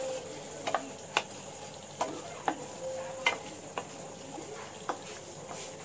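A spatula stirring and scraping thick tomato-onion masala gravy around a metal kadhai, with a soft sizzle of the masala frying; a scrape comes about every half second. The masala is almost fully roasted (bhuna).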